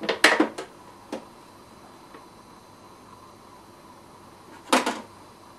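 Short, sharp clattering knocks of hard objects: a quick cluster at the start, a single knock about a second in, and another quick cluster near the end.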